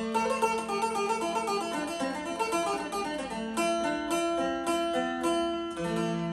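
Acoustic-electric phin (Isan Thai lute) picked quickly, a rapid melody ringing over sustained drone strings, played through an amplifier.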